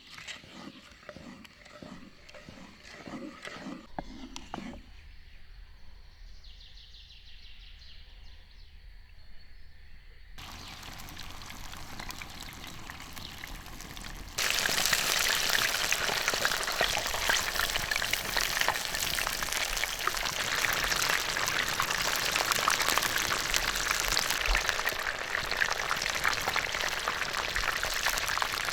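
Food sizzling and crackling over a fire. A quieter stretch comes first, then a loud, dense sizzle cuts in abruptly about 14 seconds in and holds steady.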